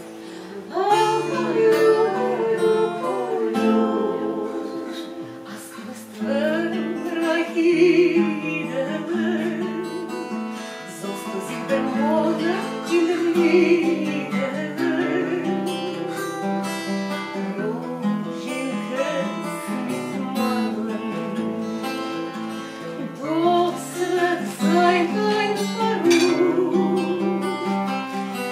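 A woman singing a Yiddish song to an acoustic guitar accompaniment.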